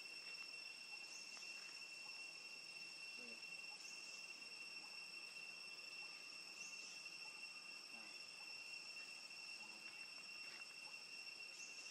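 Faint, steady high-pitched drone of insects, one unbroken tone, with a few faint short rising chirps every couple of seconds.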